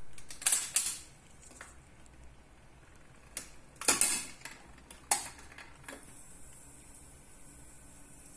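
Mechanical clicks and knocks from a vintage Montgomery Ward Airline record player being handled and set going, about seven sharp strokes over six seconds, the loudest near the start and about four seconds in, followed by a steady faint hiss.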